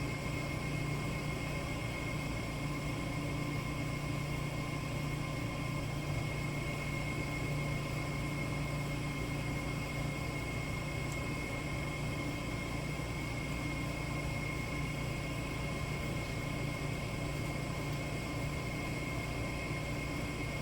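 Steady machine hum and hiss with a thin, high, constant whine, unchanging throughout; no tool or part sounds stand out.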